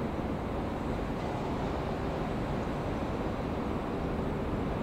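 Steady low outdoor city rumble, an even noise with no distinct events and no train passing.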